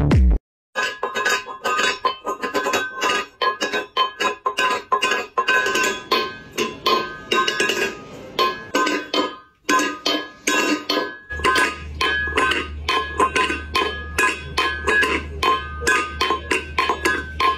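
A cat batting an empty stainless steel food bowl across a tile floor: rapid, irregular metallic clanks, several a second, each ringing briefly.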